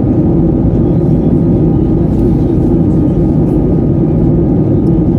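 Airliner cabin noise in flight: a steady, loud, low rush of engine and air noise that does not change.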